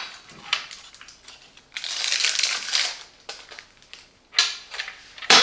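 Handling of an espresso machine's removable drip tray: a rustle of plastic lasting about a second in the middle, with a few sharp clicks and knocks.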